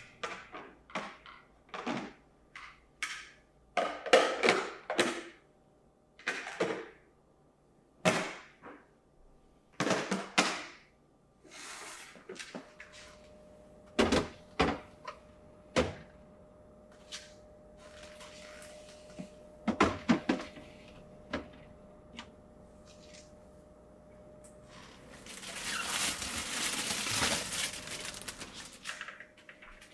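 Produce and clear plastic storage containers being handled and set onto refrigerator shelves: a series of light knocks, taps and clunks of plastic, with a plastic bag rustling for a few seconds near the end.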